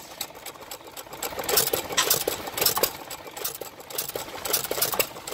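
Antique stationary gas engine running under belt load, with a fast mechanical clatter and louder beats recurring about every half second to second.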